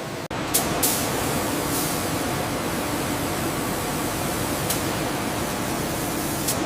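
Steady hissing factory-machine noise, with a few sharp clicks over it and a brief dropout about a third of a second in.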